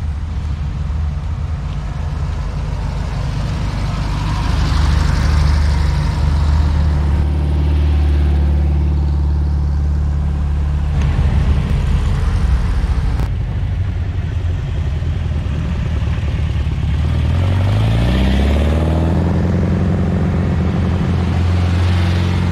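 Classic Volkswagen Beetles' air-cooled flat-four engines driving past one after another. About two-thirds of the way in, the engine note rises as one car accelerates and then holds higher as it goes by.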